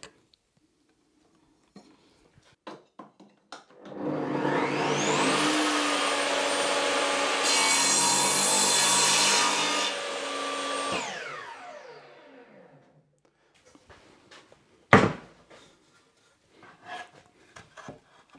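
Bosch table saw spinning up with a rising whine, ripping through a thick softwood beam for a few seconds, then switched off and winding down. A single sharp knock follows about fifteen seconds in, with lighter wooden knocks near the end.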